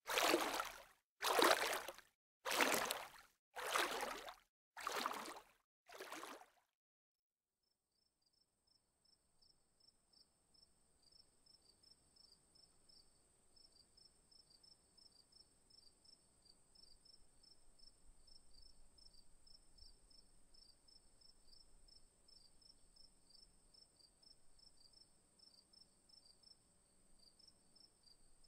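Regular whooshing swishes of water, about three every two seconds, that fade out over the first six seconds. After a short silence, crickets chirp quickly and evenly at a high pitch, with a steady thin high whine above them.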